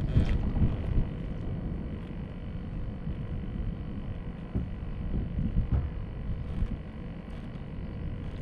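Wind buffeting the microphone, heard as an uneven low rumble.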